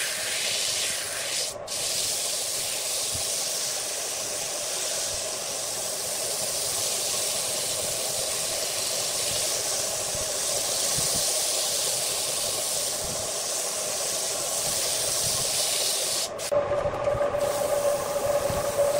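Sandpaper hissing steadily against a wooden vase spinning on an electric wood lathe. Near the end the sound changes to a rougher, more uneven rubbing over a steady motor hum as a handful of wood shavings is pressed against the turning wood to burnish it.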